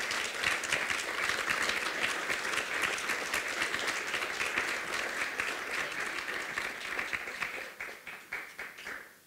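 Audience applauding. The clapping thins to a few scattered claps near the end and then stops.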